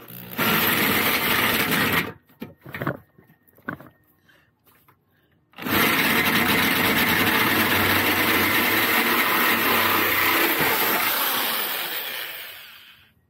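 Power drill driving a hole saw to widen a bolt hole in metal, in two runs: a short one of about two seconds, then a longer one of about seven seconds that dies away near the end as the drill spins down.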